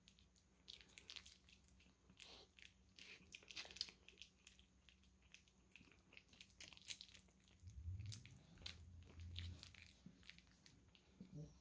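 Faint, scattered wet clicks and smacks of a pug puppy mouthing and licking at an older dog's face, with a faint low rumble for a couple of seconds past the middle.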